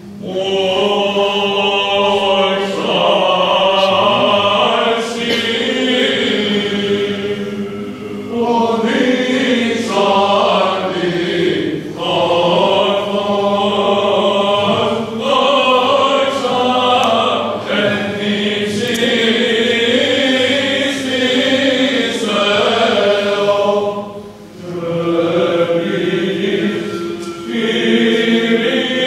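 Greek Orthodox Byzantine chant: voices singing a hymn in long melodic phrases over a steady held drone note, with short breaths between phrases.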